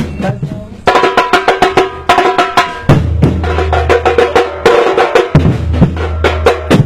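Batuque drum ensemble playing a fast rhythm on deep bass drums and snare drums. The drumming thins out briefly right after the start, then the whole group comes back in together a little under a second in.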